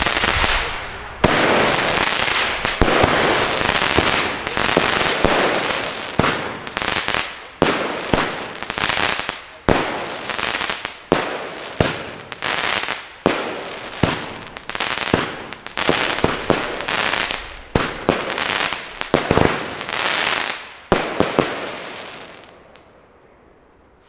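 Pyroland '4 vor 12' firework battery firing shot after shot, about one a second, each launch and burst followed by a short trailing noise. The shots stop about three seconds before the end, and the sound dies away.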